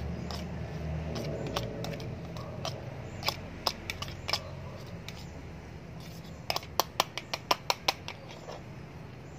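Metal spoon clicking against a plastic feeding bowl while food is scooped and shaken out: scattered clicks, then a quick run of about eight near the end. A low rumble underneath fades over the first couple of seconds.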